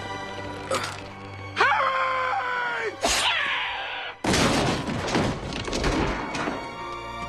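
Dramatic film score, then a long falling cry-like tone and, from about four seconds in, a sudden loud crash of shattering and clattering debris.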